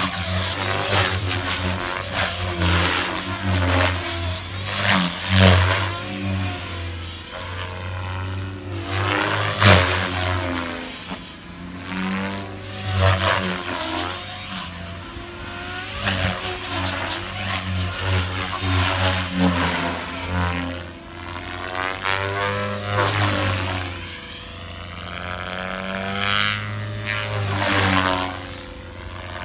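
Align T-Rex 500X electric RC helicopter in flight: a low rotor drone under a thin high whine, swelling loud as it passes close and fading as it moves off, with sweeping shifts in pitch on each pass.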